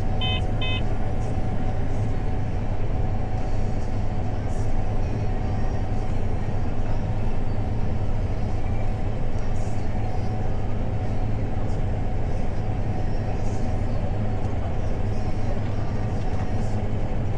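Farm machinery engine running steadily under load, a constant low drone with no change in pace. A couple of short electronic beeps sound right at the start.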